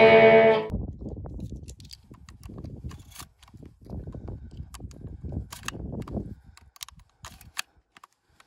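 An electric guitar chord rings and cuts off abruptly. Then 12-gauge shells are thumbed into the magazine tube of a Mossberg 930 shotgun, giving several sharp clicks as they seat, over a low, uneven rumble.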